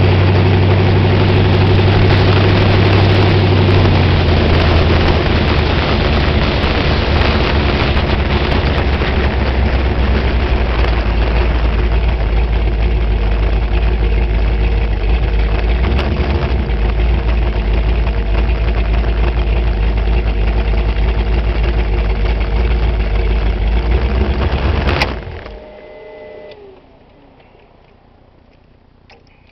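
Sprint car's fuel-injected V8, breathing through eight open velocity stacks, running loud and steady at low speed, then shut off suddenly about 25 seconds in, leaving only a faint wind-down.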